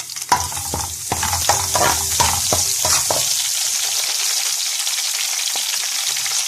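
Chopped vegetables going into hot oil in a pan and sizzling. For the first three seconds there is a clatter of knocks as pieces drop in and are stirred, then a steady sizzle.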